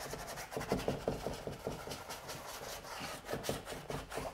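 Paintbrush working acrylic paint onto a canvas in a quick, irregular run of short scrubbing strokes, several a second.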